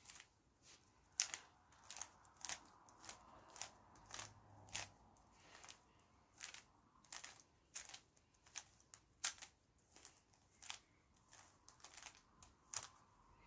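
Plastic 3x3 Rubik's cube being twisted by hand, its layers clicking as they turn: a run of short, sharp clicks, about two a second.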